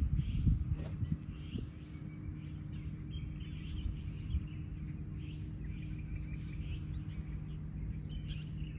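Birds chirping again and again over a steady low hum, with wind rumbling on the microphone during the first second or so.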